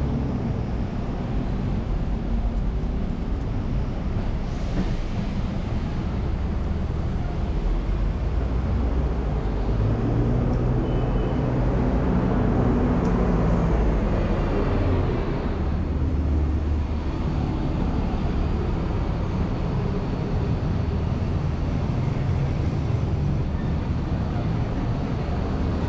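Downtown street traffic: a steady rumble of car engines and tyres, with one louder vehicle's engine hum swelling and fading as it passes near the middle.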